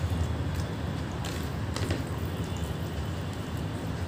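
Soft clicks and squelches of someone eating rice and fish curry, about a second in, over a steady low rumble.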